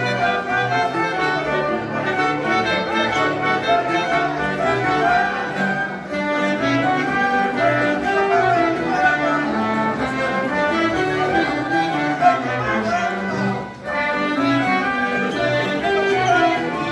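Live folk dance music from a small band, with a steady pulsing bass beat and a melody line over it; the music dips briefly near the end.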